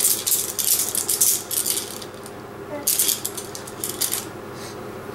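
A ring of toy keys shaken and jangling in quick clinking bursts, first for about two seconds and again about three seconds in.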